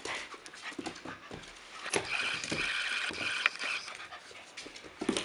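A puppy panting, with its claws clicking and scrabbling on a slippery wooden floor.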